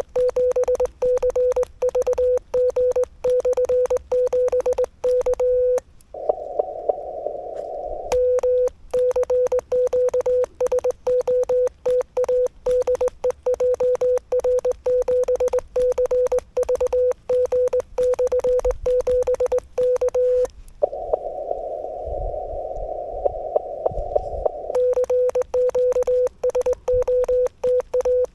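Morse code keyed by hand on a straight key: the transceiver's sidetone, a steady tone of about 500 Hz, switches on and off in dots and dashes with a click at each keying. Twice, about six seconds in and again about twenty-one seconds in, the sending stops for a few seconds and the receiver's narrow-filtered band hiss comes up, listening for a reply.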